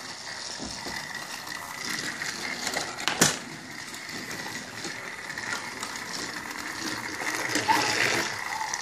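Battery-powered TrackMaster Thomas toy engine running along plastic track, its small motor and gears whirring steadily with a thin high whine. A single sharp click about three seconds in.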